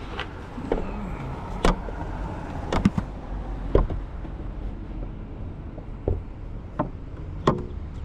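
Hand fumbling at the front edge of a Jeep's hood and grille, feeling for the hood latch: scattered sharp clicks and knocks, about seven, over a steady low rumble.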